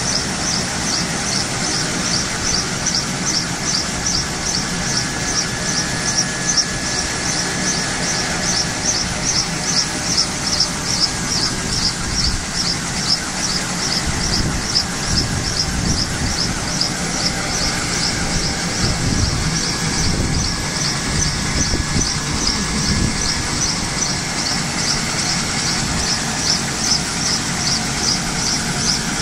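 Kaman K-MAX helicopter during start-up: a steady rushing noise with a rhythmic high-pitched chirp about three times a second.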